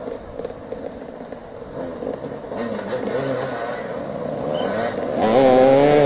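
Several motoball motorcycle engines running and revving close by, with scraping and clatter. About five seconds in, a louder held note sets in, wavering slightly in pitch, and it is the loudest part.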